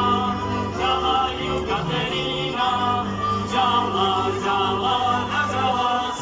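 A group singing a Moravian-Slovak folk song to live folk string-band accompaniment with fiddles.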